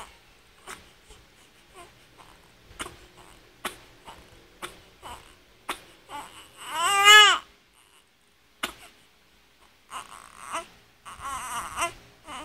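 Young infant fussing, with short faint whimpers, then one loud cry that rises and falls about seven seconds in, and more crying near the end.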